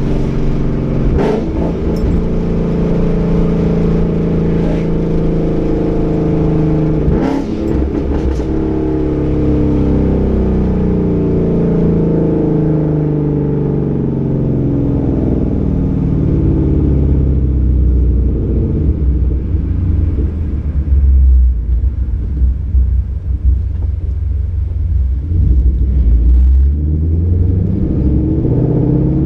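Ford Mustang 5.0 V8 through a Roush axle-back and off-road X-pipe exhaust while driving, the engine note rising and falling in pitch as it accelerates and shifts. A few sharp cracks come about a second in and again around seven seconds, typical of the exhaust's pops.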